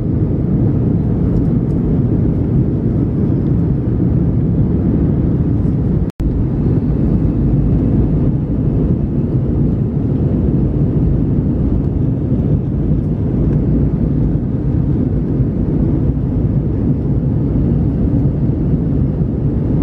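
Steady low engine and airflow noise inside a jet airliner's cabin in flight. It cuts out for an instant about six seconds in.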